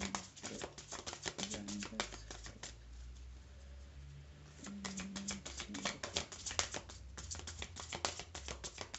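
A deck of oracle cards being shuffled by hand: quick runs of crisp card clicks, pausing for about two seconds a little before the middle, then starting again.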